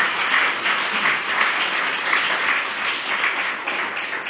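Audience applauding, a dense steady patter of clapping that eases slightly towards the end.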